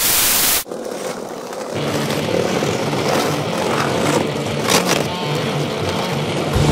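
A half-second burst of hiss at the cut, then skateboard wheels rolling on concrete with a couple of sharp board clacks, over music with a low bass line that comes in about two seconds in.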